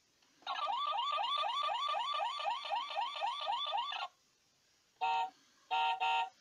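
Adventure Wheels Ford Mustang GT toy car's electronic sound effect from its small speaker: a rapid repeating rising siren whoop, about five sweeps a second, for roughly three and a half seconds. Then three short electronic horn beeps, one and then two close together.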